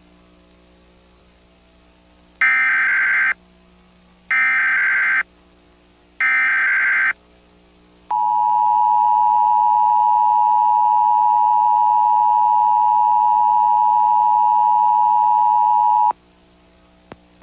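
Emergency Alert System test signal: three bursts of SAME digital header data, each just under a second, then the EAS two-tone attention signal held steady for about eight seconds before cutting off sharply.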